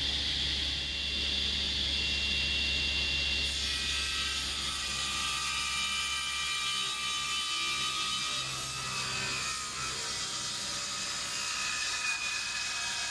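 Woodworking machinery running: a steady motor hum with high whining tones. About a third of the way in the whine changes, and soon after the low hum fades while shifting, gliding tones carry on.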